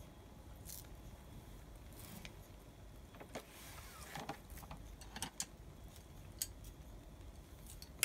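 Kitchen scissors snipping green onions, with faint, sharp clicks and snips scattered through.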